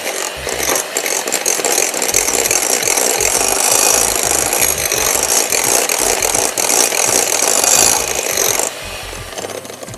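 Handheld electric mixer running steadily, its twin beaters churning melted chocolate and butter into egg batter in a glass bowl. The sound drops in level near the end.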